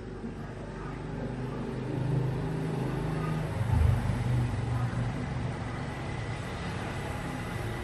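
Road traffic rumble, with a motor vehicle passing that grows loudest about four seconds in.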